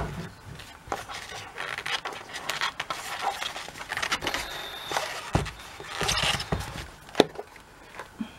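Rustling, scraping and sharp plastic clicks and taps as a clear acrylic stamping block is picked out and handled, with a sharp click near the start and another about seven seconds in.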